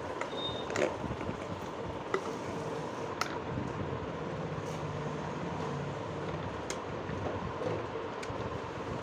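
Steady background noise with a few light clicks and taps from hands handling a cricket helmet and its steel grille.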